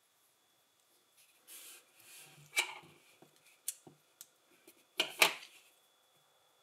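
Plastic LEGO pieces being handled and clicked together: a soft rustle through loose pieces, then a few sharp clicks, the loudest a quick double clack about five seconds in.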